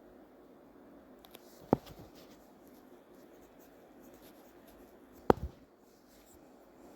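Faint scratching of a paint-marker tip over small plastic model parts, with two sharp clicks, about two seconds in and again about five seconds in.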